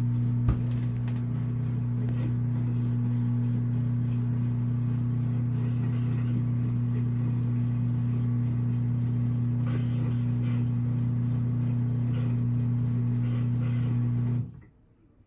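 Washing machine drain pump humming steadily as it pumps the water out, with a click about half a second in. The hum cuts off suddenly near the end. The pump runs but the drum does not spin, and the machine keeps starting the cycle over.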